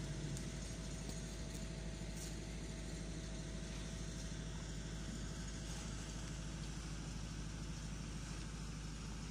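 A large mobile crane's diesel engine running steadily at idle, an even low hum with a faint steady higher tone above it.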